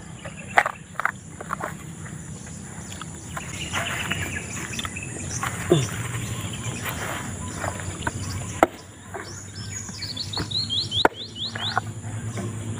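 Machete chopping into a young green coconut's husk and shell: several sharp chops spaced a second or more apart. A steady high insect drone runs underneath, and near the end a bird gives a quick falling series of chirps.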